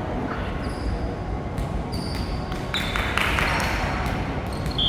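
Sneaker soles squeaking on an indoor court floor, with scattered sharp hits of play ringing through a large hall. The longest, loudest squeak comes near the end.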